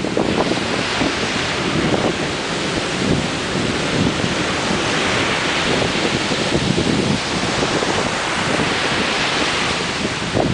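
Ocean surf breaking and washing, swelling and easing in a couple of slow surges, with wind buffeting the microphone.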